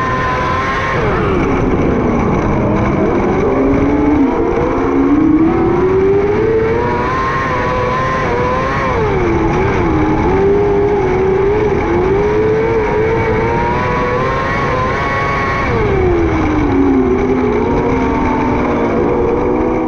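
600cc micro sprint car engine at racing speed, its note dropping as the driver lifts for the corners and climbing again on the straights, about three times.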